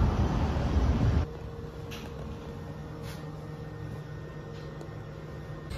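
City street noise for about a second, then an abrupt cut to the steady low hum of a small washroom's ventilation, with a couple of faint clicks.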